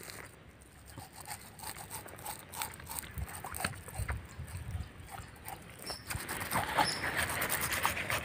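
Hands rubbing a coarse, moist ground-masala paste into a scored pomfret on a banana leaf: soft wet squishing and patting with small clicks, getting louder in the last couple of seconds.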